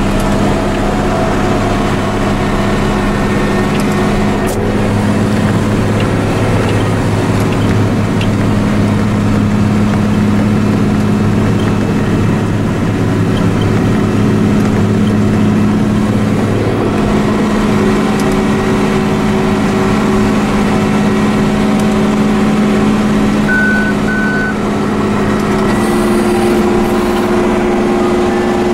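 International 5288 tractor's six-cylinder turbo-diesel engine running steadily under load, heard inside the cab, as it pulls a Vermeer 605M round baler through cornstalks. Two short high beeps sound a little before the end.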